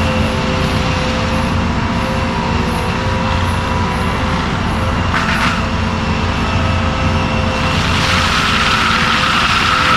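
ASV RT-120F compact track loader running steadily with a TMC Cancela forestry mulcher head spinning, with a short sharp noise about five seconds in. About eight seconds in, a higher whine and hiss come in as the mulcher works.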